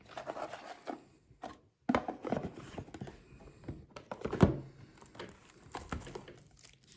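Board game cards and plastic bags being handled, making irregular rustling and light knocks. The loudest knock comes about four and a half seconds in.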